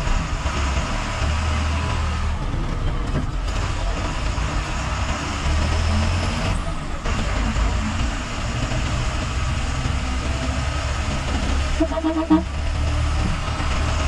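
Bus engine running with a steady low drone and road noise inside the driver's cab. A short horn toot sounds about twelve seconds in.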